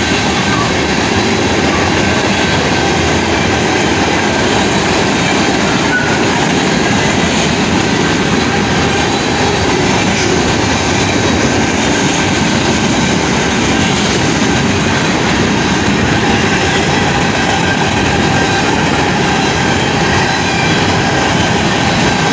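Canadian Pacific train rolling steadily past at a road crossing: continuous rumble and clatter of its wheels on the rails.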